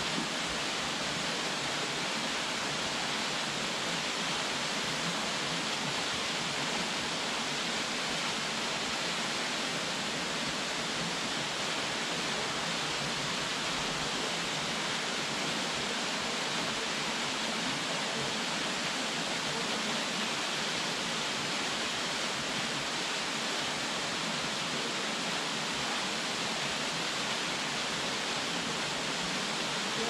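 Minoo Falls, a waterfall about 33 m high, pouring steadily into its plunge pool: an even, unbroken rush of falling water, more hiss than rumble.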